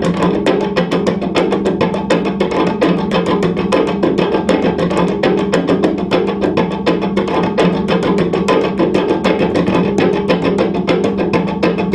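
Amplified cello played as an experimental sound box: rapid, dense plucking and tapping of the strings near the bridge give a stream of clicking, woody strokes over a sustained low drone.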